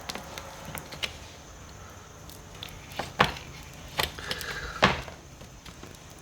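A handful of sharp knocks and clicks, the loudest about three and five seconds in, with a brief scraping rustle just before the last one: a wooden honey frame and an uncapping scratcher being handled and worked.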